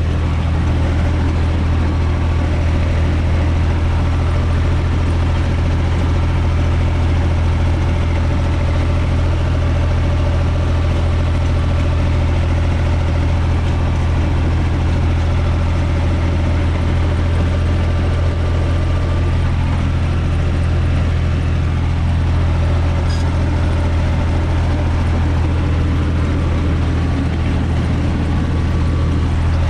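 UTB 445 tractor's four-cylinder diesel engine running steadily, heard from inside the cab.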